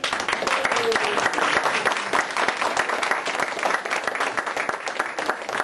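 Audience applauding, starting all at once and thinning out near the end.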